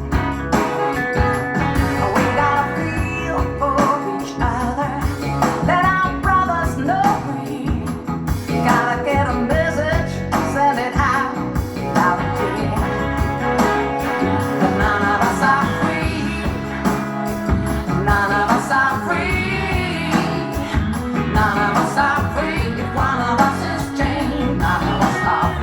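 A rock-and-roll song with singing, guitar and drums played back through SLAudio TL hi-fi speakers driven by a Willsenton R8 valve amplifier.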